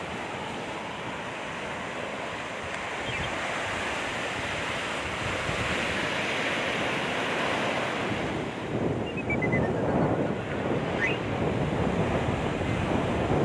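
Sea surf breaking and washing up a sandy beach in a steady rush that swells and falls with each wave, with wind buffeting the microphone.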